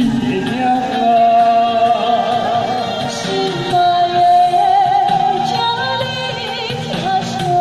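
A woman singing a love-song duet part with vibrato into a microphone, amplified, over a recorded backing track.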